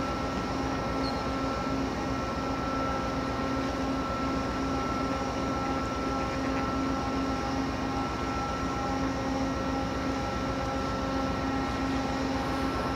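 Steady drone of ship engines and machinery across the harbour: a low rumble with a few steady humming notes on top, unchanging throughout.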